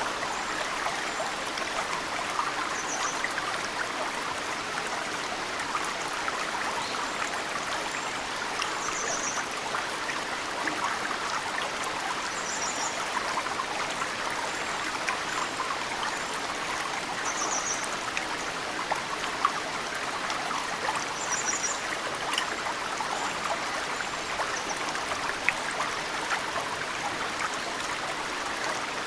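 Mountain stream running steadily, with occasional meltwater drips plinking into it. Short high bird chirps come every few seconds.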